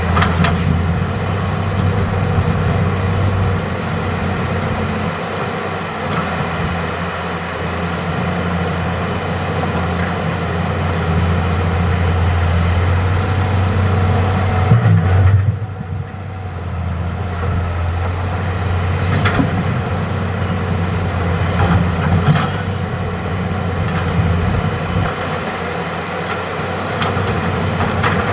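Hitachi hydraulic excavator's diesel engine running steadily under working load, with a few sharp knocks along the way and a brief dip in the engine sound about halfway through.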